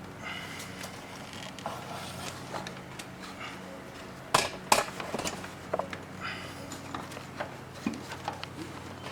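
Scattered clicks, scraping and knocking of the air cleaner being worked loose by hand from an ATV's air box, with two sharp knocks a little over four seconds in.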